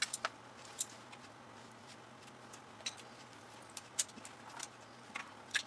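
Adhesive tape being peeled up by hand inside an opened LCD TV: scattered small clicks and crackles at irregular intervals.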